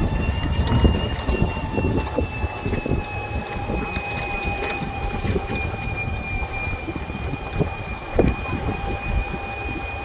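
Wind buffeting the microphone, over the steady two-tone whine of an electric golf cart's motor, which sinks slightly in pitch.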